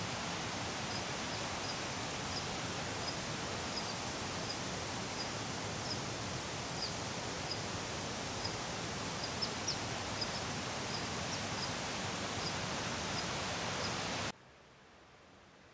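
Steady, even wash of outdoor noise, like rain or running water, with short high chirps of a small bird about once or twice a second. The noise cuts off abruptly about fourteen seconds in, leaving only a faint hiss.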